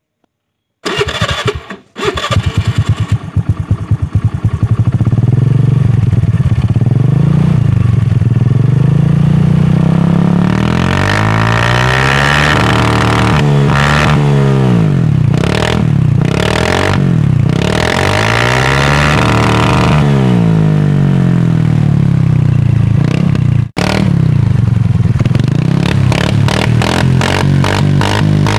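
Honda Activa 125 scooter's single-cylinder four-stroke engine, fitted with an aftermarket Akrapovic exhaust, starting about a second in and then revved up and down over and over, loud through the open exhaust. Sharp pops and crackles come from the exhaust as the revs drop: backfire.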